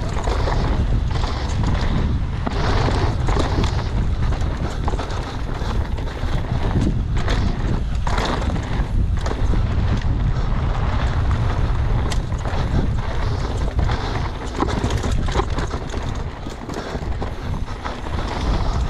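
Downhill mountain bike ridden fast down a dry, stony dirt trail: steady wind rush on the microphone over the tyres crunching on loose dirt and gravel, with frequent sharp knocks and rattles from the bike over rocks and bumps.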